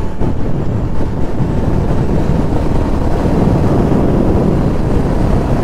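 Motorcycle riding at speed: a steady rush of wind buffeting the microphone, with road and engine noise underneath.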